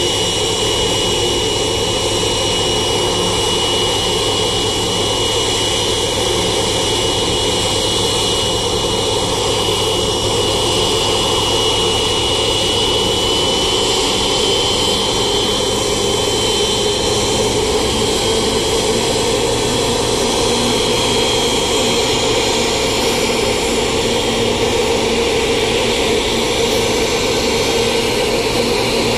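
Boeing 777-200ER's twin turbofan engines running together during a ground run-up: a steady jet roar with a high whine that rises slightly about halfway through.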